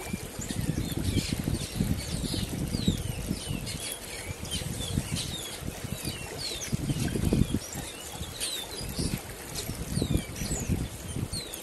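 Many short, high chirps of small birds over the rush of a shallow, rocky river, with irregular low rumbles of wind on the microphone, strongest around seven seconds in.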